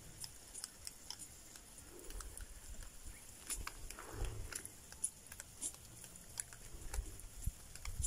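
Month-old ducklings moving about and pecking: scattered soft clicks and taps with a few faint low thumps.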